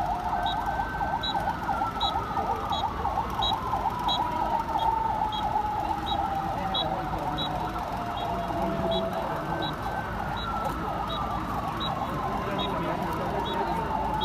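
Police vehicle sirens sounding together. One siren gives a fast warble that fades near the end. Another gives a slow wail that holds high, falls steadily over several seconds, and starts high again about two-thirds of the way through. Over them a short high beep repeats a little more than once a second.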